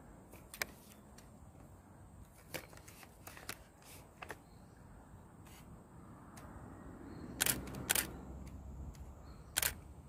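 Handling noise from a handheld camera: scattered soft clicks and knocks, the loudest two about seven and a half and eight seconds in, over a faint low rumble that swells in the second half.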